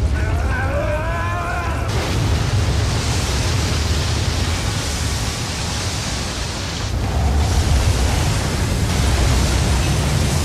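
Film sound of an airliner ditching at sea. People scream in the cabin for about the first two seconds. Then a steady rushing roar of water and spray takes over as the Boeing 747 belly-lands on the sea and skims across the surface.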